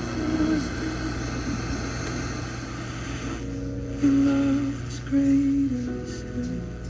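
Music from a broadcast coming through a Zenith R472 Circle of Sound radio's speaker: slow, held notes that change pitch, loudest in the middle of the stretch, over a steady low hum.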